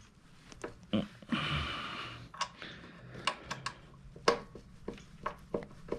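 Scattered small metallic clicks and taps as a steel pivot pin is wiggled into a motorcycle foot peg mount against the peg's return spring, with a brief rustle about a second and a half in.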